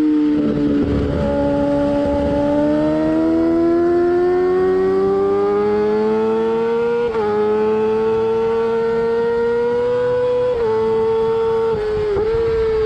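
Yamaha R6's inline-four engine running at high revs, its pitch climbing slowly over several seconds. The pitch dips briefly about seven, ten and a half and twelve seconds in.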